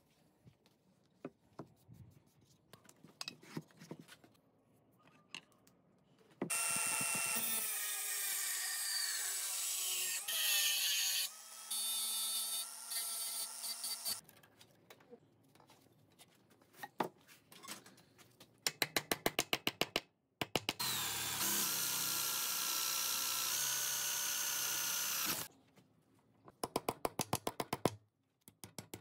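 Angle grinder grinding a flat steel strip in two long runs, its whine shifting in pitch as it cuts, with short bursts of fast, even clicking between the runs. Light scattered clicks and taps come first.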